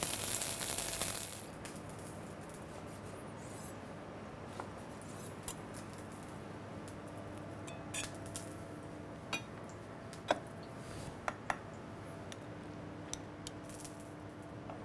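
Lettuce sizzling in an oiled frying pan for about the first second, then cutting off. After that come scattered light clicks and clinks of a kitchen knife on a wooden cutting board and a metal spoon against a ceramic bowl, over a faint steady kitchen hum.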